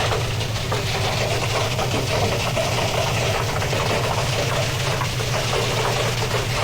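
Old Hotpoint washing machine running with its drum spinning: a steady motor hum under continuous rapid rattling.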